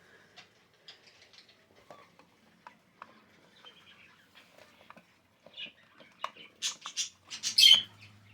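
Irregular small clicks and rattles of an alarm clock being handled, sparse at first, then louder and busier in the last few seconds. A faint low hum comes in near the end.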